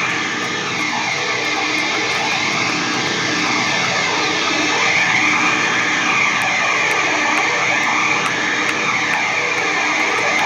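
Doom metal band playing live: loud, heavily distorted guitars holding a sustained, droning wall of sound with a slowly sweeping, swirling texture.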